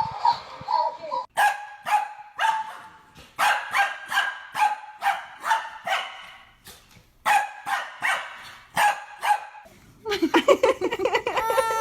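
A dog barking over and over in short, quick barks, about two or three a second, with a brief pause partway through. Near the end a drawn-out, wavering cry begins.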